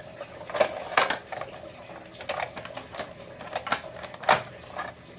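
Irregular clicks and clacks of a plastic toy train boxcar being handled, with louder knocks about a second in and again past four seconds.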